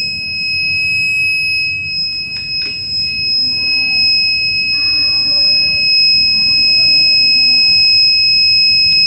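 Buzzer of a DIY fire-alarm circuit kit sounding one steady, high-pitched continuous tone, set off by the heat of a diya flame held to its sensor.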